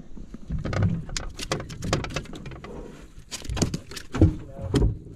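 Irregular knocks, taps and rustling of a just-landed smallmouth bass and fishing gear being handled on a boat's deck, with a few louder thumps near the end.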